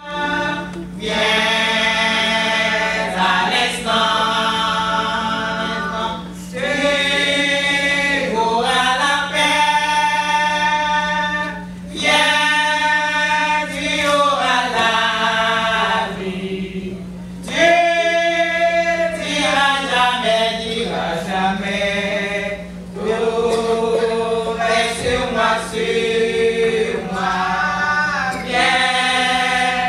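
Women's choir singing together in long phrases, with short breaks between them. A steady low hum runs underneath.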